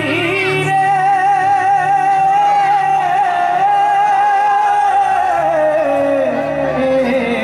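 A man singing into a handheld microphone, holding one long note with vibrato that slides lower near the end.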